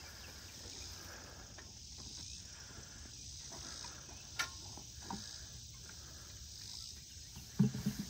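Steady high buzzing of insects in a summer field, with a single sharp click about halfway through. Near the end come a few low thumps as the mules' hooves start moving.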